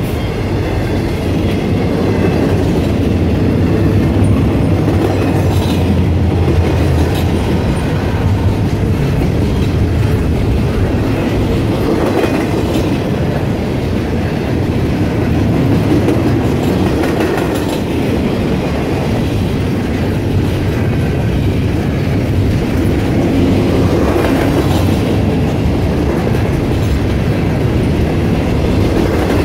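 Norfolk Southern double-stack intermodal train rolling past: the steady rumble of steel wheels on rail under the container well cars, with occasional clacks of wheels over rail joints.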